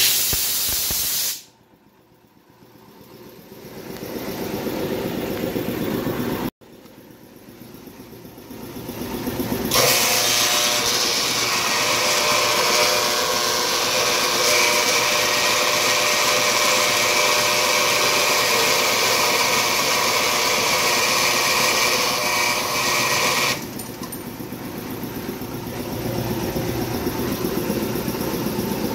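Power saw cutting a piece of half-inch metal conduit. After a short loud burst at the start, the motor winds up, cuts off abruptly about six seconds in, winds up again and then cuts loudly through the pipe for about fourteen seconds; once through, about 23 seconds in, it keeps running more quietly.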